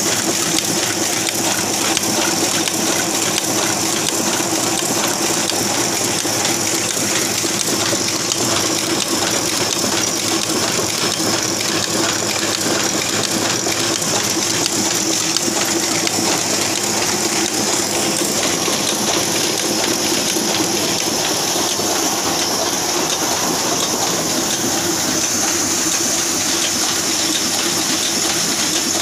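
Small sheet-fed offset printing press running: a steady mechanical whir and hiss with a constant low hum from its drive.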